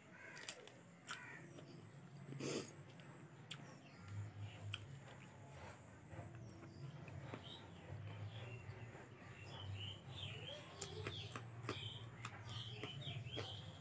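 Close-miked eating by hand: wet mouth smacks, chewing, and fingers squelching rice and curry, heard as sharp clicks and smacks. From about halfway, small birds chirp faintly in the background, over a low hum that starts about a third of the way in.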